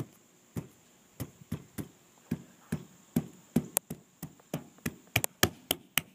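A quick, irregular run of sharp taps and knocks, about three a second, some with a dull thud under them.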